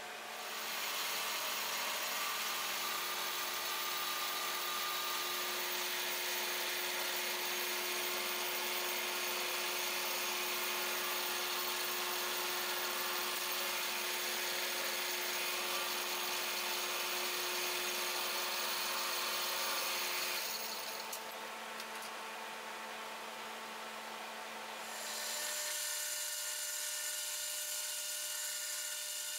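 Metal lathe running while a cutting tool takes chips off spinning metal stock: a steady machine whirr with a high hiss. It falls quieter about twenty seconds in and comes back with a different pitch near the end, as the striker for the igniter is turned.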